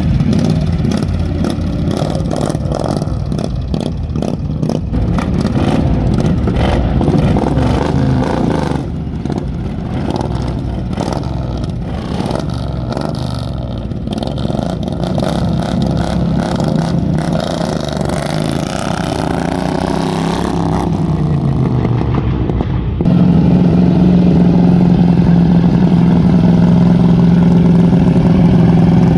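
Engines running, their pitch rising and falling, with clattering. About 23 seconds in, a louder, steady engine hum takes over suddenly.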